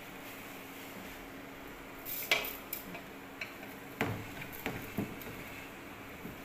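Wooden chopsticks stirring cassava leaves in an aluminium pot, knocking against the pot's side and rim in a string of sharp clacks from about two seconds in, the loudest first. A steady low hum from the running induction cooker lies underneath.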